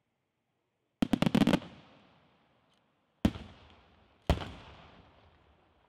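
Aerial firework shells bursting: near silence, then a rapid cluster of about half a dozen sharp bangs a second in, followed by two single bangs about a second apart, each trailing off in a fading echo.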